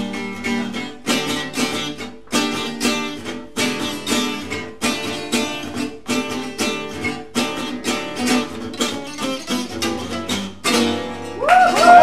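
Two gypsy jazz acoustic guitars playing a duet: chords strummed in a steady rhythm with single-note melody lines over them. Near the end the tune closes and voices break in, whooping and cheering.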